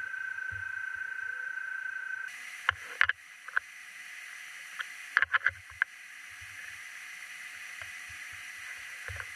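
CNC mill spindle running with flood coolant spraying as a key seat cutter cuts a slot in a stainless steel watch case: a steady high whine over a splashing hiss that cuts off about two seconds in. Then come a few sharp metallic clicks and knocks in two clusters as a hex key is worked in the inside-diameter clamp holding the case.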